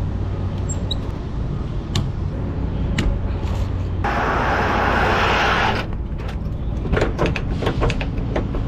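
Trailer's tarpaulin sheet being hauled over a load of paper bales, with a lorry engine idling underneath: a few knocks, a rushing slide of about two seconds in the middle, then a quick run of clicks and knocks of the sheet's metal fittings near the end.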